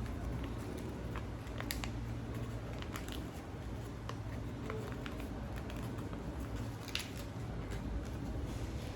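A sheet of paper being folded and creased by hand, giving scattered short crinkles and crisp taps over a steady low background hum.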